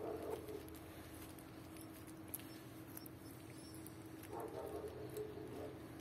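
Young puppies whimpering faintly, once at the start and again about four seconds in, with light scrabbling of their paws on a blanket.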